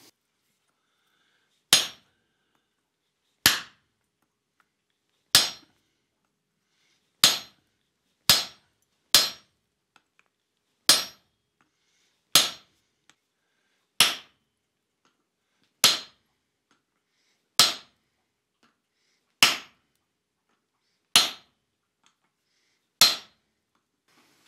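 Hand hammer striking a red-hot bar of forge-welded steel-cable billet on an anvil: single sharp blows, each ringing briefly. There are fourteen strikes, spaced about two seconds apart, with a few closer together near the middle.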